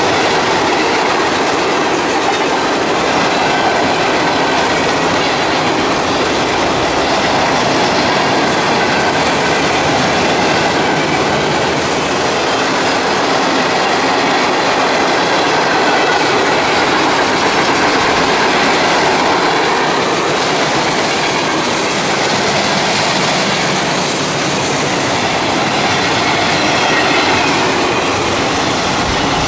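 A CSX mixed freight train's cars (tank cars, covered hoppers and boxcars) rolling past close by: a steady rumble and clatter of steel wheels on the rails.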